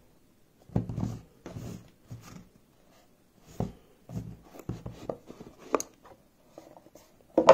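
Cardboard box being handled and opened: irregular rubbing, scraping and light knocks of cardboard under the hands, with a sharper knock near the end.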